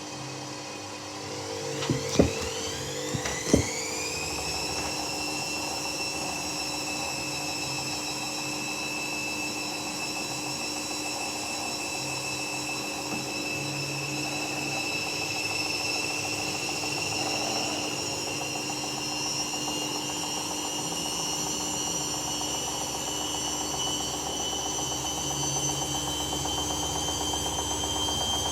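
Hoover Dynamic Next 7kg washing machine spinning with its door open: the motor whine climbs steeply in pitch over the first few seconds as the drum speeds up, then holds a steady high whine that creeps slightly higher. A few sharp knocks come about two to three and a half seconds in.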